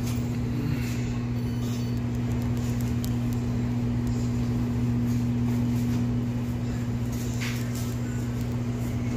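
Steady low electrical hum of an appliance or machine, one low tone with a second an octave above, over a faint even background noise. There is a faint brief clatter about seven and a half seconds in.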